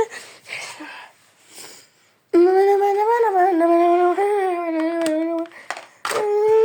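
A voice humming one long, gently wavering note, then a second, slightly higher note starting near the end.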